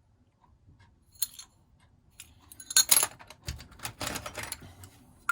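Metal padlocks and keys clinking and rattling as they are handled in a box: scattered clicks, with the loudest clatter about three seconds in and another rattle shortly after.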